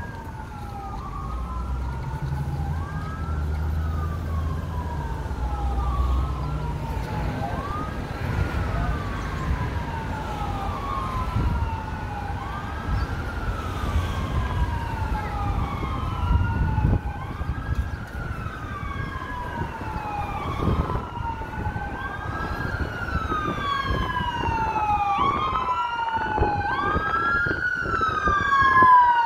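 Emergency vehicle siren wailing, its pitch rising and falling about every two seconds, with a second siren overlapping it; the sirens grow louder near the end.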